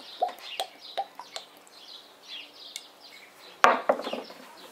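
Small birds chirping in the background, with one sharp knock about three and a half seconds in.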